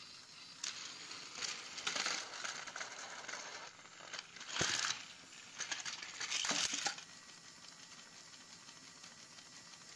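Plastic toy trains rattling and clattering as they crash into a small toy car and tumble off a raised plastic track, with a few sharp clicks about four and a half and six and a half seconds in. The clatter stops about seven seconds in.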